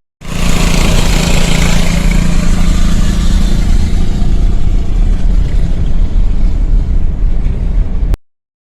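Coleman CT200U mini bike's 6.5 horsepower single-cylinder engine running through an aftermarket exhaust header with a steady note, under a heavy low rumble. It cuts off suddenly near the end.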